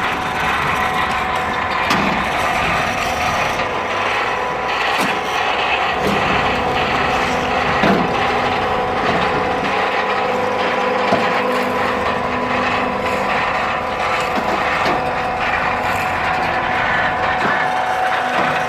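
A machine running steadily, with a constant hum and scattered rattling clicks and knocks.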